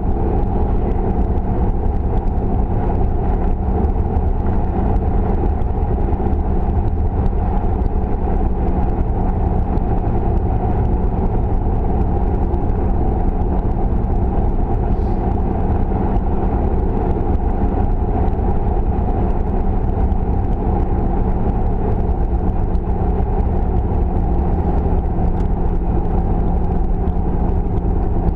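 Car driving at highway speed, heard from inside the cabin: a steady low rumble of engine and tyre noise with a constant low hum.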